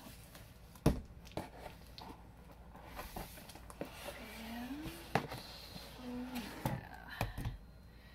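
Cardboard boxes being handled and opened: a sharp knock about a second in, then cardboard rubbing and scraping with scattered light taps.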